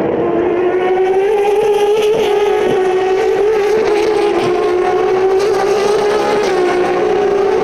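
A pack of Turismo Carretera race cars' six-cylinder engines running hard together, a loud steady drone held at a fairly even high pitch that wavers slightly near the end.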